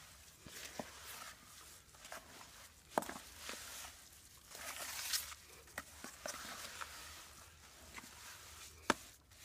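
Round-nose trowel stirring a damp refractory cement mix in a plastic bowl: repeated soft scraping, with a few sharp clicks, the loudest near the end.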